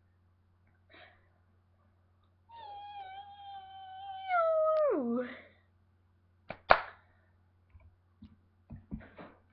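A child's drawn-out, high-pitched vocal squeal, held level for about two seconds and then sliding sharply down in pitch. A sharp knock follows a little over a second later, then a few faint clicks near the end.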